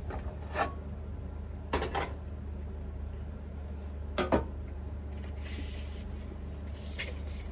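Kitchen clatter of a skillet being knocked and moved off an electric coil burner: three separate clanks, the loudest about four seconds in, over a steady low hum.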